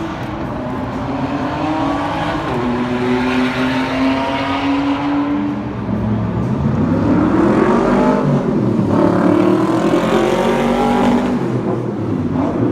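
Sports car engine running under throttle: its note climbs slowly at first, then rises and falls again as it grows louder in the second half.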